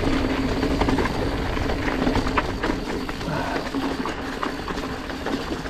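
Canyon Grand Canyon AL SL 9.0 hardtail mountain bike rolling over rocks and loose stones, rattling and clicking, with a steady low rumble of wind and trail noise.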